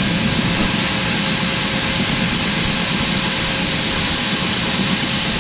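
Grain leg (bucket elevator) running as soybeans are lifted into the bin: a loud, steady mechanical rush with a faint low hum, starting abruptly.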